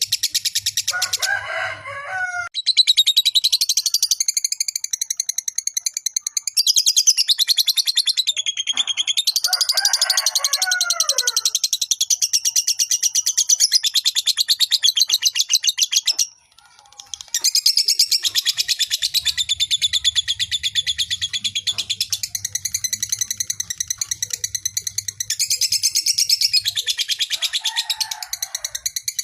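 Lovebird giving its long 'ngekek' song: a long, very rapid, high-pitched chattering trill. It breaks off briefly about halfway through, and a few lower calls are mixed in near the start, around ten seconds in, and near the end.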